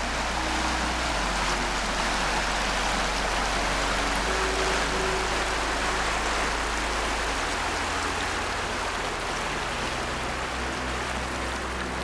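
Small stream rushing over rocks: a steady hiss of running water. Soft background music with long held deep notes plays underneath.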